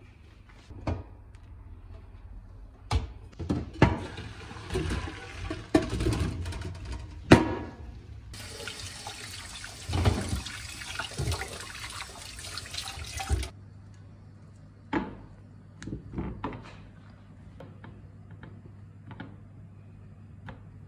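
Kitchen clatter of a pot and a metal colander as boiled potato wedges are drained. Then a tap runs over the wedges in the colander for about five seconds and shuts off abruptly, followed by soft taps as the wedges are laid out on a cloth.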